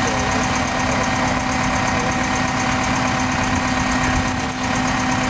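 An engine idling steadily at an even pitch.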